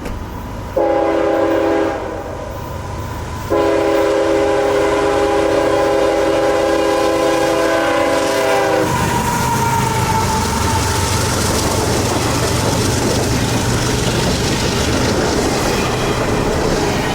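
CSX freight locomotive's multi-chime air horn sounding a short blast, then a long blast of about five seconds. The train then rolls past, its engine drone, wheels and cars making a steady rumble and hiss.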